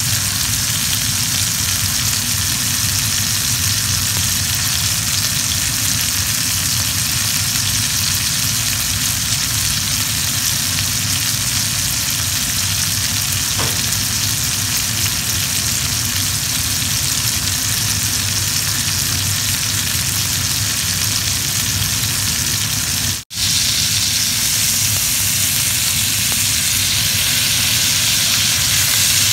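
Two steaks sizzling steadily as they sear in hot fat in a skillet.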